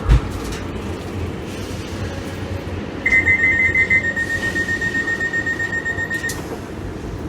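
Train door-closing warning alarm: a high electronic beeping begins about three seconds in, first as two quickly alternating notes, then as a single repeated note for about three seconds more, over a steady low rumble. A dull thump at the very start.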